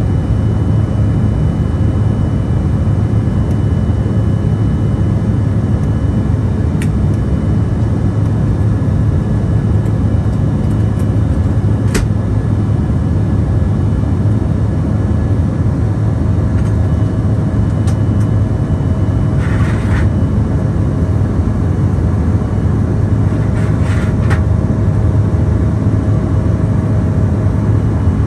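Steady cabin drone of an Embraer E170 regional jet in flight: a low rumble of its two turbofan engines and airflow heard from inside the cabin, with faint steady tones over it and a few brief clicks.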